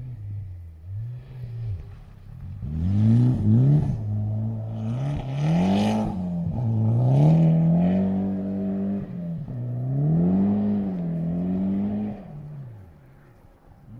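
Rally car engine revving hard, its pitch climbing and dropping again and again through gear changes as it slows for a tight turn and accelerates away. It fades out near the end.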